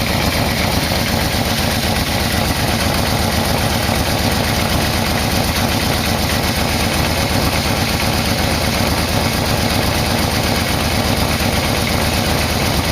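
Yamaha VMax V4 engine idling steadily while its carburetors are being synchronized.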